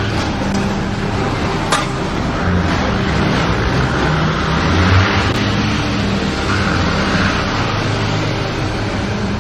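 Steady vehicle noise: a low engine hum that shifts in pitch, over a continuous wash of road noise, with a small click about two seconds in.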